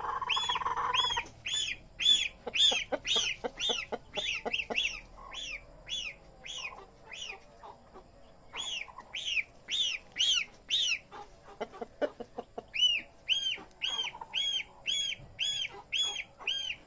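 Goslings peeping over and over, high arched chirps about two to three a second, thinning out for a few seconds in the middle. A few short knocks or scratches come just before the peeping picks up again.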